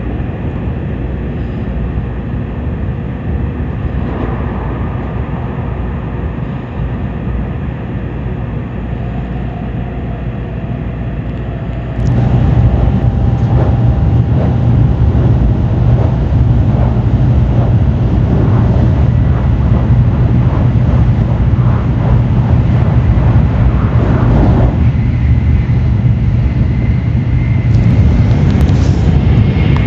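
Tokaido Shinkansen train running at speed, a steady rumble of wheels and running noise. About twelve seconds in it turns abruptly louder and deeper.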